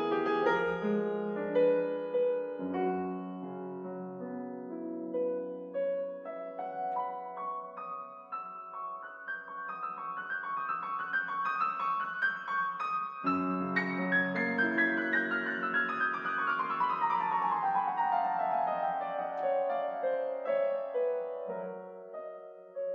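Background piano music: gentle notes that climb in a long upward run, then cascade back down in a descending run.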